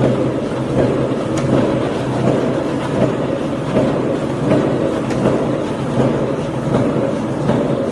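Roll-fed paper die cutting machine running, a rhythmic stroke about every three-quarters of a second over a steady mechanical hum.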